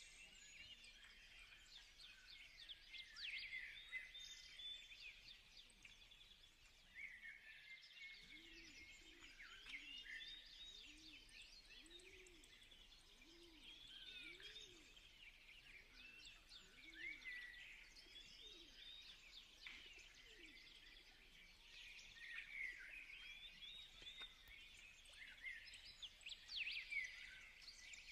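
Faint birdsong: many short chirps and trills throughout, with a lower call repeating about once a second through the middle stretch.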